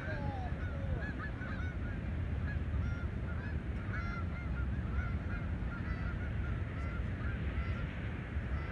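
A flock of geese flying overhead, honking many times a second without a break, over a steady low rumble of wind on the microphone.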